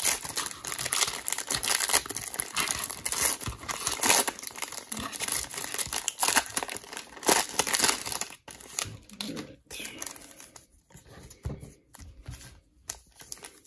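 Plastic cello wrapper of a Panini Mosaic trading-card pack being torn open and crinkled by hand. The crinkling is dense for the first eight seconds or so, then turns to sparser, quieter rustles.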